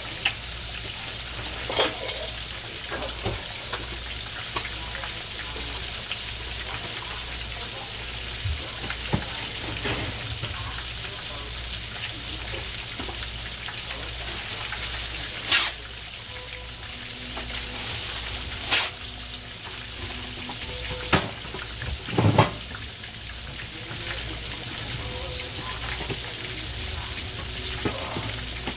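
Breaded chicken breasts shallow-frying in hot oil in a cast-iron skillet: a steady, crackling sizzle. A few sharp pops break in now and then, the loudest about three-quarters of the way in.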